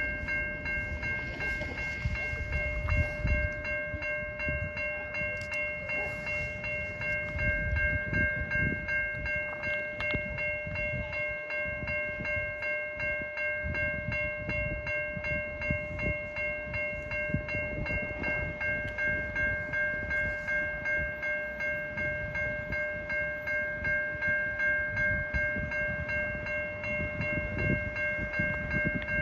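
Railway level crossing's electronic warning bell ringing continuously, a steady ringing tone that pulses regularly about once a second, signalling that a train is approaching. Uneven low rumble lies underneath.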